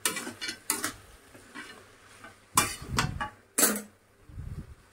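A metal spoon clanking and scraping against a pan as cooked noodles are tossed and mixed with vegetables. The clanks are scattered, with the loudest few coming about two and a half to three and a half seconds in.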